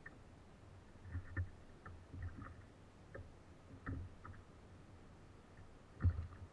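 Light, irregular knocks and ticks from hands handling fishing gear on a kayak, with the loudest knock about six seconds in.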